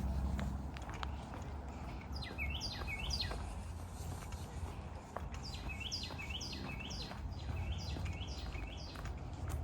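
A bird singing a run of short, clear notes that each slide down in pitch, given in quick pairs, first a few notes about two seconds in and then a longer run after a short pause. A low steady rumble lies underneath.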